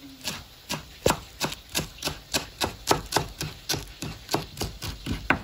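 Kitchen knife chopping fresh coriander on a cutting board: a quick, even run of sharp knocks, about four a second.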